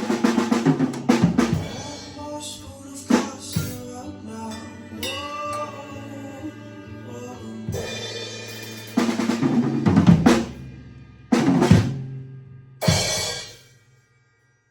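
Drum kit played along to a recorded song, with snare and bass drum strokes over the music. It ends with three loud, separate hits about a second and a half apart, then stops.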